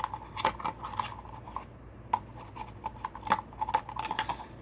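Small parts being handled by hand: irregular light clicks and taps, the sharpest about two seconds in and just after three seconds.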